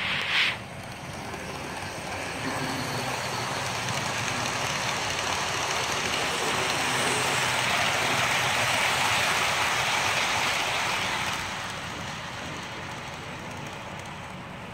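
Model freight train rolling past on the layout, pulled by GP38-2 and GP35 diesel models: wheels running on the rails and the cars rumbling, building up from about two seconds in, loudest in the middle as it goes by and fading near the end. A brief sharp noise sounds right at the start.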